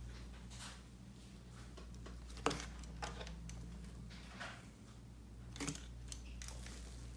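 A metal ice-cream scoop dragged and pressed through thick textured slime in a plastic tub: a string of short crackles and squishes, with a sharp click about two and a half seconds in. A steady low hum runs underneath.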